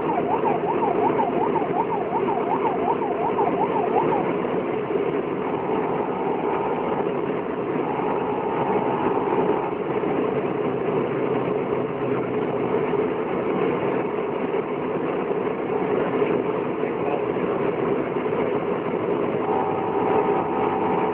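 Steady engine and road noise from inside a convoy vehicle on the move. A fast warbling siren sounds for the first few seconds, and a steady siren tone cuts in briefly a few times later.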